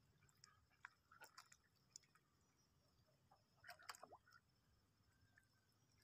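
Faint ducks dabbling at the water's edge: scattered soft bill clicks and wet sipping sounds, with a short cluster of them about four seconds in.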